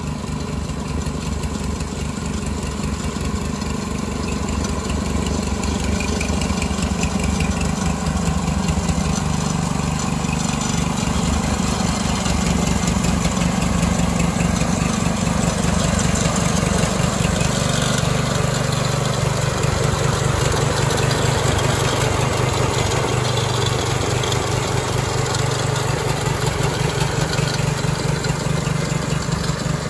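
Single-cylinder vertical-shaft lawn mower engine on a model railway track-cleaning wagon, running steadily. It gets somewhat louder around the middle, and its note shifts slightly about two-thirds of the way through.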